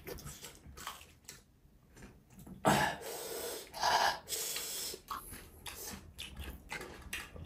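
Close-miked eating sounds: soft chewing and mouth clicks, with a few short breathy bursts about halfway through.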